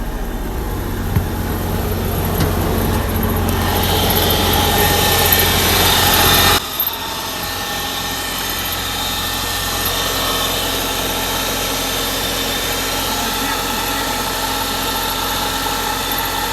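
A motorhome's onboard diesel generator running steadily just after its first cold start in years. About six and a half seconds in, its sound changes abruptly: the low hum drops away and it runs on evenly.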